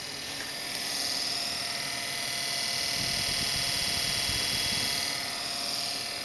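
Desktop PC cooling fans running with a steady airy whoosh that swells louder for a few seconds in the middle, with some low rumbling partway through.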